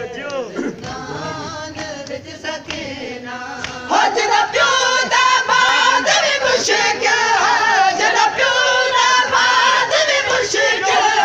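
Crowd of men chanting a Muharram noha together, many voices at once, growing much louder about four seconds in.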